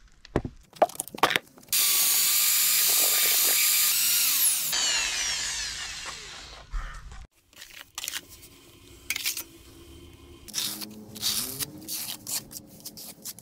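Electric drill with a mixing paddle running at speed in a bucket of mosaic plaster for about three seconds, then released and winding down with a falling whine. After that, scrapes and taps as a trowel spreads the plaster on the concrete step edge.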